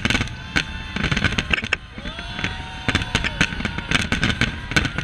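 A large fireworks display: a dense, rapid run of overlapping bangs and crackling from bursting aerial shells, over a continuous low rumble.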